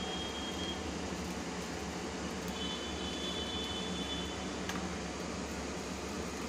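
Steady hum and hiss with a low drone underneath, joined twice by a faint high thin whistle and once by a soft click about three-quarters of the way through.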